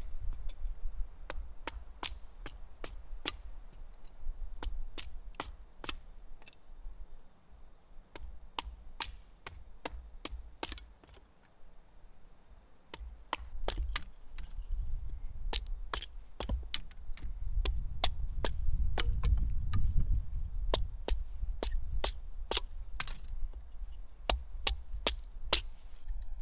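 Axe splitting firewood into kindling on a wooden chopping block: many quick, sharp knocks of the blade into the wood, irregular, about two a second, over a low rumble.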